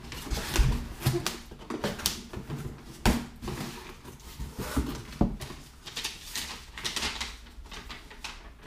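Cardboard shipping box being opened by hand: flaps pulled back and the packing and papers inside handled, giving a string of irregular rustles, scrapes and knocks, with a couple of louder knocks midway.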